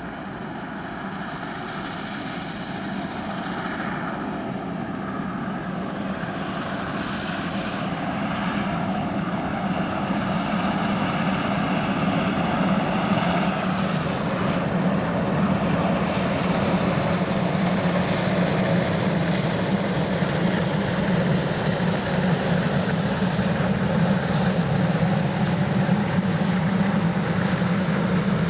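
Steam locomotive hauling a freight train, its exhaust growing steadily louder as it approaches and passes, with the train's wagons rolling by near the end.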